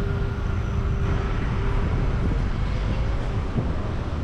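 Steady street traffic noise with wind rumbling on the microphone.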